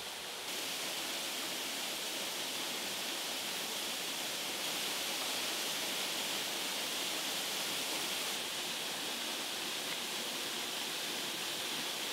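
Steady rush of a waterfall, an even hiss with no separate knocks or other sounds; it gets a little louder about half a second in.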